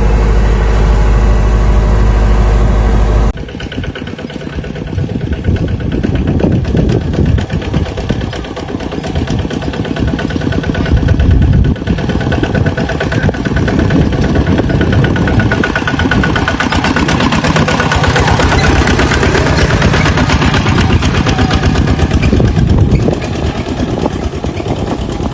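A rice combine harvester's engine running. A loud steady low drone for the first three seconds cuts off abruptly, and the rest is the engine running with rapid, even firing pulses.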